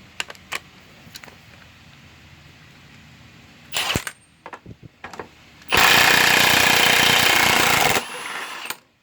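Impact wrench hammering off a motorcycle's 32 mm rear axle nut: a short burst about four seconds in, then a loud rattling run of about two seconds, easing to lighter running before it stops.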